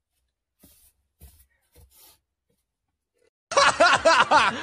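A few faint small sounds, then, about three and a half seconds in, a person laughing in quick bursts for just over a second.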